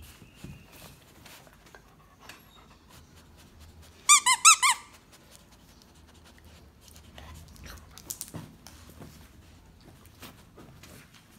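Squeaker inside a plush frog dog toy squeaking four or five times in quick succession, a run of less than a second about four seconds in, with faint rustling of fabric around it.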